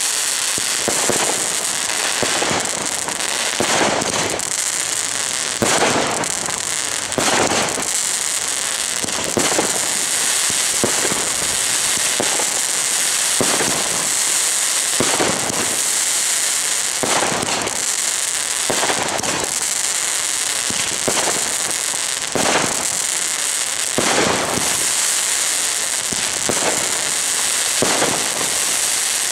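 The First Dynasty 19-shot firework cake firing a barrage, one shot about every second and a half, over a dense crackle that runs throughout.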